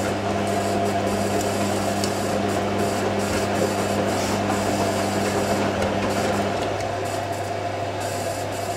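IKEA RENLIG IWM60 washing machine filling to a deep water level for its final rinse: water running in steadily under a low hum. Part of the hum stops about six and a half seconds in and the sound drops slightly.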